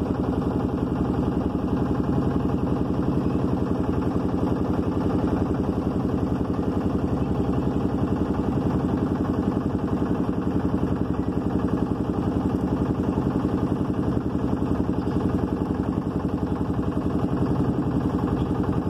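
Motorboat engine running steadily at an even speed, a fast, regular chug that carries on unbroken.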